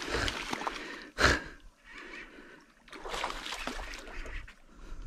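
Hooked barramundi thrashing and splashing at the water's surface near the boat, with one louder splash about a second in.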